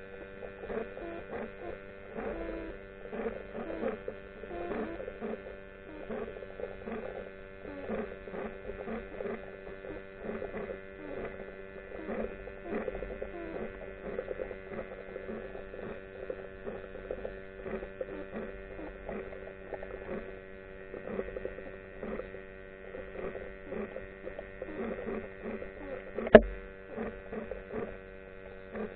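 Underwater recording: a steady hum made of several fixed tones, under frequent faint irregular clicks and crackles. Near the end there is one sharp, loud click.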